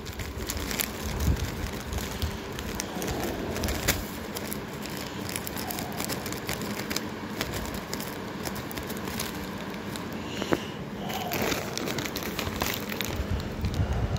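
Plastic snack packets crinkling and rustling as they are handled and turned over, with many small irregular crackles.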